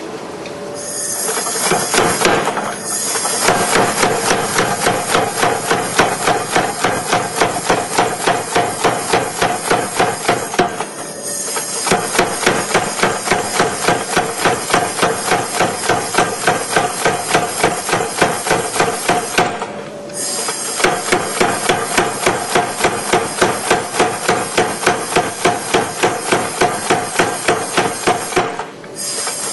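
Blacksmiths' hammers striking hot steel on an anvil while forging a pair of tongs. The blows fall in a fast, even rhythm of about three a second, with a ringing note from the anvil. The hammering breaks off briefly three or four times.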